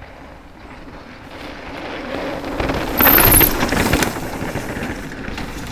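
Two mountain bikes riding past close by on a dirt trail berm, the sound of their tyres on dirt swelling to a loud peak about three seconds in and then easing off. A brief high squeal comes at the loudest moment.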